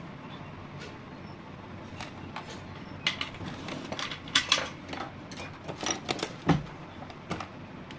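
Irregular clicks and clatter of tools and parts being handled on a workbench. They start about three seconds in, over a steady low hum.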